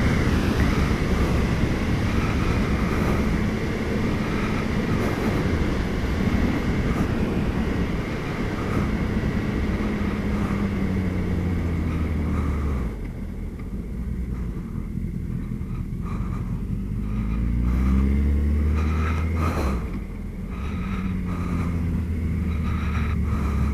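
Suzuki B-King motorcycle's inline-four engine, heard from the rider's helmet with wind rushing over the microphone at speed. About halfway through the wind noise drops as the bike slows, and the engine note rises and falls with throttle and gear changes.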